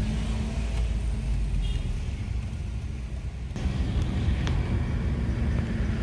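Car engine and road noise heard from inside the cabin while driving: a steady low rumble and hum. The sound changes abruptly and gets a little louder about three and a half seconds in.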